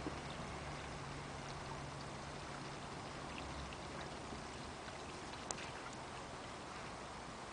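Egrets and ibises feeding in shallow water: soft scattered splashes and small ticks, with one sharper click about five and a half seconds in, over a steady outdoor hiss.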